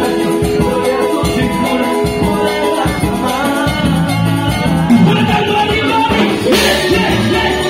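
Live cumbia ranchera band playing, with drum kit, guitar and a singer's voice over a steady dance beat.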